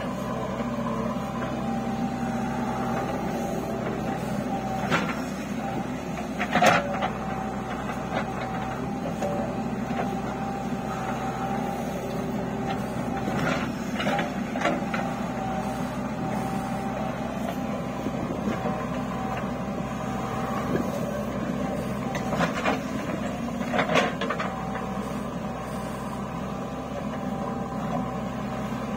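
JCB 3DX backhoe loader's diesel engine running steadily under digging load, with a constant whine over it. Several sharp metallic clanks from the backhoe bucket and arm break through, loudest about seven seconds in and again near the end.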